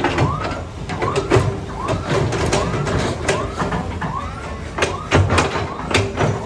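Earth-moving machine at work: a steady low engine rumble under repeated metallic clanks and knocks, with short squeals that rise and fall over and over.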